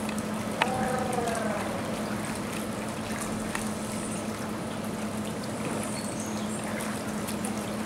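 Steady trickle of circulating swimming-pool water over a steady low hum, with a short high-pitched voice about half a second in.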